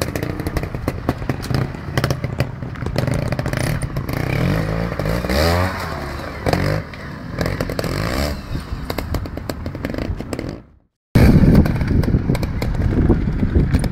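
Beta trials motorcycle engine revving up and down as the bike picks its way over rocks, with scattered knocks and clatter. About three-quarters of the way through the sound drops out briefly, then returns as a louder, rumbling stretch of engine noise.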